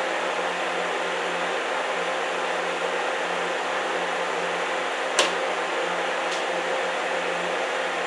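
Welding arc on a contaminated pressed-steel mower-deck pulley: a steady sizzling hiss over a low hum, with a sharp pop about five seconds in and a fainter one a second later. The popping and spitting come from rust and contamination trapped between the pulley's two pressed-together halves being drawn out by the heat.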